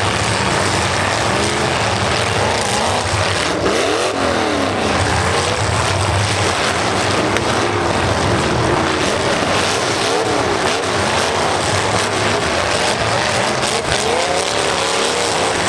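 Several demolition derby cars' engines revving hard at once, their pitches repeatedly rising and falling over one another, with a few sharp knocks about three and a half to four seconds in.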